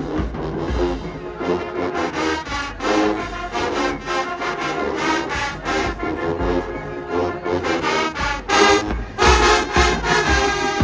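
A marching band's brass section playing loud sustained chords over bass drum hits.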